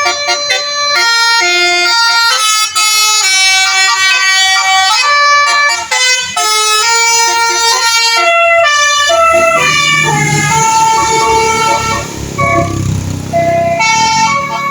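Bus "telolet" musical horn playing a quick tune of short stepped notes, loud and continuous. About two-thirds of the way in, a heavy vehicle's engine rumbles underneath for a few seconds.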